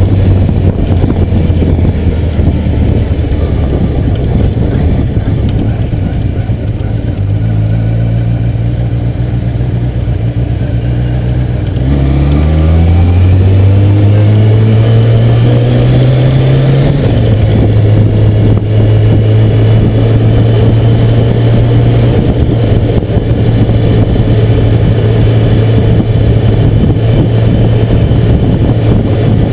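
Motorcycle engine heard from the rider's seat while riding: steady at first, then the revs climb smoothly for about five seconds in the middle before settling to a steady cruise.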